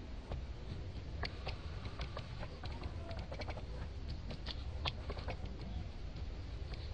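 Macaques eating and handling pieces of fruit: scattered soft clicks and taps at an uneven pace, the densest cluster a little past the middle, over a low steady rumble.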